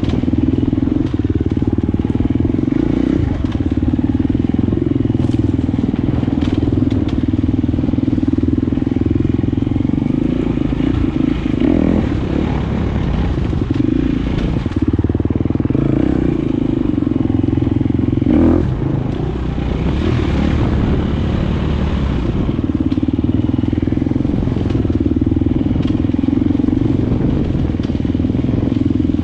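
Enduro dirt bike engine running under load as it is ridden, its note wavering with the throttle and dipping briefly a few times, with a few sharp knocks.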